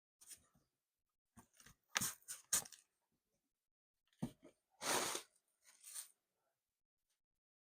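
Packaging being handled and opened: a string of short rustles, crinkles and tearing sounds, the longest and loudest about five seconds in, then stillness.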